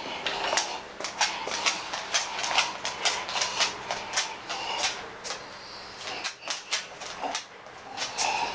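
A Belgian Malinois's claws clicking on a hard floor as she walks about, a few sharp, irregular clicks a second.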